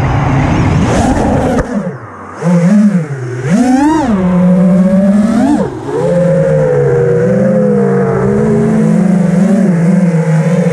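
FPV quadcopter's brushless motors (Emax Eco II) whining. The pitch swoops up and down with sharp throttle changes, and the throttle chops briefly about two seconds in. The motors then hold a fairly steady pitch for the rest of the stretch.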